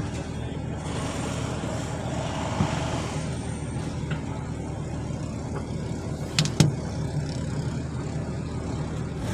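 Steady low vehicle rumble heard from inside a stopped car's cabin, with a light knock a few seconds in and a sharper, louder knock about six and a half seconds in.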